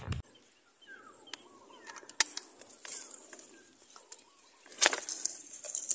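Small birds chirping faintly over a steady, thin high insect whine, broken by a few sharp clicks and knocks, the loudest about two seconds in and again near five seconds.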